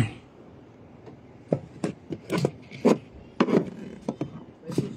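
Irregular knocks, clicks and rubbing from hands and tools handling car parts, a few sharp strikes with short pauses between them.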